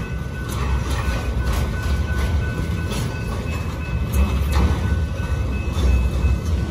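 Intermodal freight train of highway trailers on spine flatcars rolling past: a steady low rumble of wheels on rail with irregular clicks over the rail joints and a thin, steady high-pitched tone running through it.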